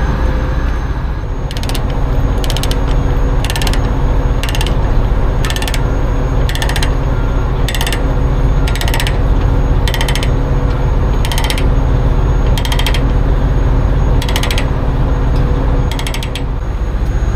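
Ratchet chain binder being cranked to tighten a loose load-securing chain on a flatbed trailer: short bursts of rapid ratcheting clicks, about one burst a second, over a steady low hum.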